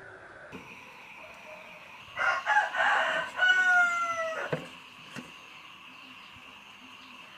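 Rooster crowing once, about two seconds long: a rough start, then a drawn-out note that falls slightly at the end.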